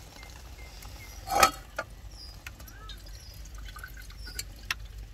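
Melted ghee draining from a tilted aluminium pot of sweet into a metal bowl below, dripping and trickling as a spatula presses the sweet back. A sharp knock sounds about a second and a half in, with a few lighter clicks later.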